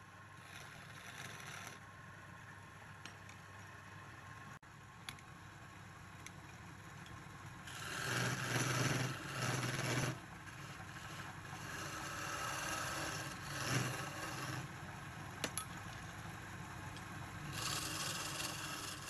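A chisel scraping and cutting into a spinning wooden spindle on a wood lathe. The cutting gets louder for a couple of seconds about eight seconds in, and again near the end.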